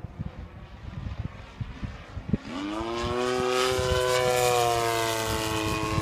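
A DLE55 single-cylinder two-stroke petrol engine on an RC aerobatic plane, with its propeller, comes in about two and a half seconds in, rising in pitch and then holding a steady high note. Before that, low wind thumps on the microphone.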